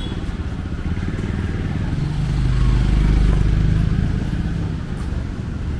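A motor vehicle's engine passes by, rising about two seconds in, loudest around three seconds, then fading, over the murmur of street voices.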